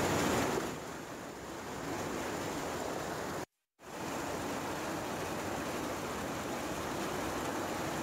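Floodwater rushing over a river bridge, a dense, even noise of churning water. It cuts out for a moment about three and a half seconds in, then carries on the same.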